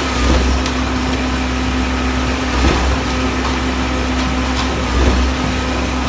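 Concrete mixer truck and concrete pump at work: engines running steadily, with a low surge repeating about every two and a half seconds.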